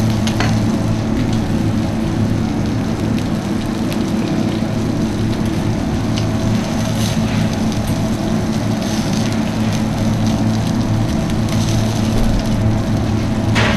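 Red onion pieces sizzling on a hot flat-top plancha, a steady hiss over the constant low hum of kitchen extraction. A few light clicks of metal tongs, the clearest near the end.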